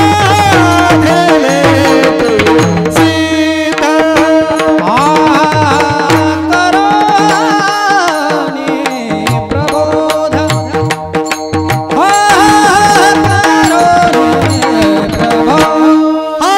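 Devotional singing in long, ornamented held notes over a steady drone, with hand-drum accompaniment keeping a beat.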